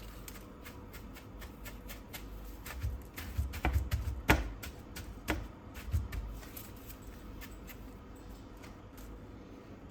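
Kitchen handling noises: scattered light clicks and ticks, with a few sharper knocks around the middle.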